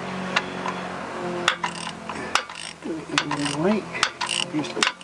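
Hand ratchet with a 13 mm socket clicking in short, uneven strokes as a new sump plug is run into the oil pan.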